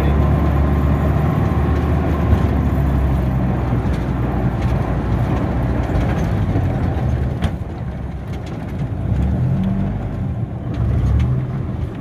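Vehicle engine running while driving, heard from inside the cab: a steady low hum that eases off about seven and a half seconds in, then picks up again twice as the engine is revved.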